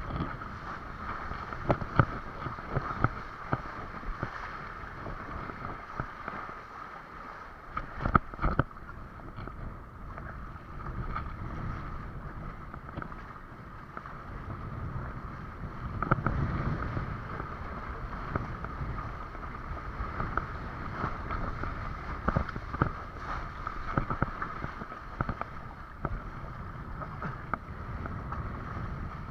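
Windsurf board sailing under way: a steady rush of wind and water, broken by several sharp knocks and splashes as the board hits the chop.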